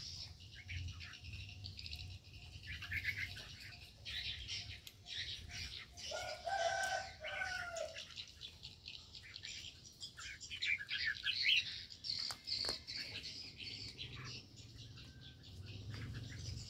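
Aviary birds chirping busily and continuously, with a dove's low coo lasting about two seconds, about six seconds in.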